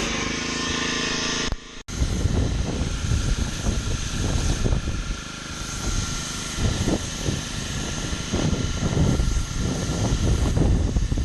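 Gas-engine pressure washer running with the hiss of the high-pressure spray. About two seconds in the sound cuts out briefly and comes back as an uneven, gusty low rumble over the steady running.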